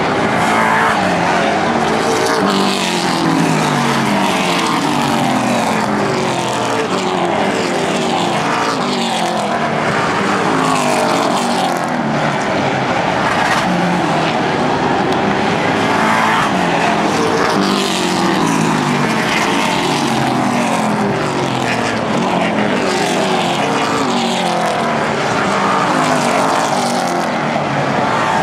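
A field of pro stock (super late model) race cars running their V8 engines hard around an oval. Cars pass one after another, each engine note dropping in pitch as it goes by, over a constant roar from the rest of the pack.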